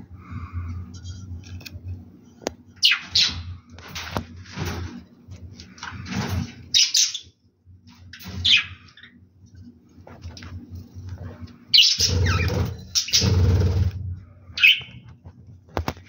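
Budgerigars calling in a nest pot: a string of short, scratchy chirps, some sliding quickly in pitch. Two longer, louder raspy bursts come near the end.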